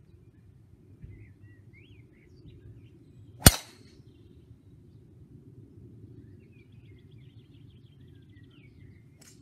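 Callaway XR Speed driver striking a golf ball in a full swing: a single sharp crack about three and a half seconds in.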